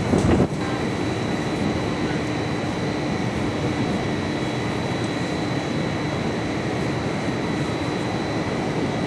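Steady outdoor background rumble and hiss with a constant low hum and a faint high whine, after a brief louder burst of noise at the very start.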